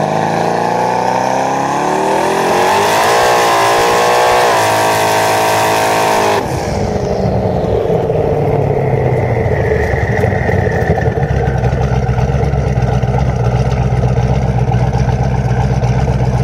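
Twin-turbo LS V8 of a 1500 hp Camaro revving up during a burnout, its pitch climbing and then held at high rpm. About six seconds in the sound cuts abruptly to a lower, steady engine drone.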